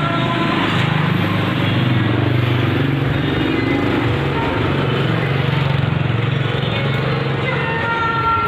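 A small engine running steadily, with a continuous low hum.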